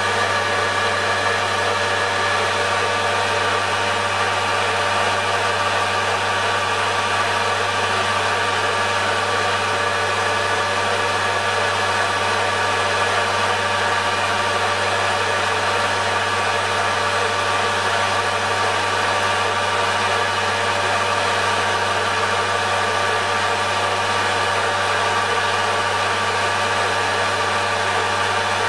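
Metal lathe running steadily, turning a steel bar to take the mill scale off: an even motor and gear hum with several steady tones.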